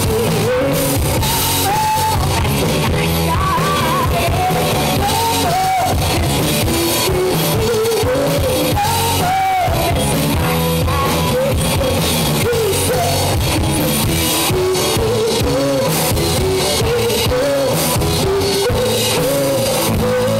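Live rock band playing a song: a singer's voice over drum kit and electric guitar, loud and without a break.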